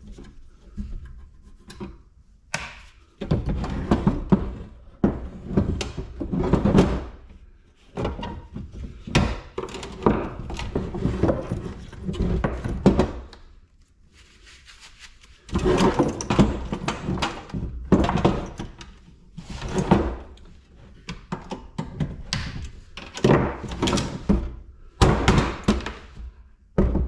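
Irregular thunks, knocks and clatter of scrap electrical parts being handled, set down and tossed about on a workbench, with short quiet pauses between bursts.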